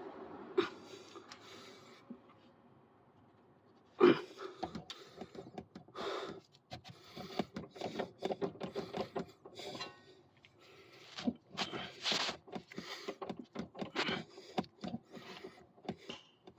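Hand tools working on a car's front suspension bolts: a sharp knock about four seconds in, then a long, irregular run of clicks, knocks and scraping.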